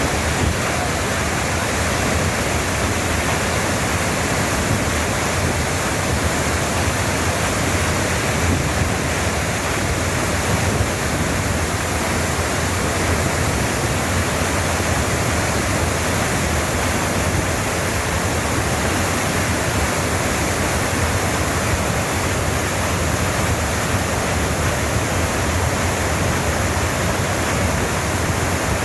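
Waterfall pouring steadily: an even, unchanging rush of falling water.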